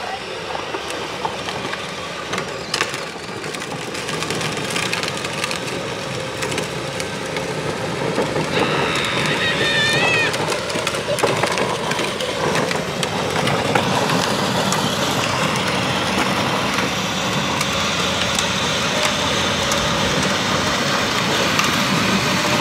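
Electric drive motors and gearboxes of a custom Power Wheels ramp truck whining steadily while it hauls two ride-on toys on its flatbed, wheels rolling on pavement. The sound grows gradually louder.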